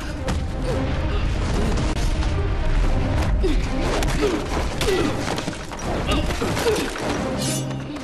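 Fight-scene soundtrack: music with a heavy low drive, mixed with blows, scuffling and short grunts.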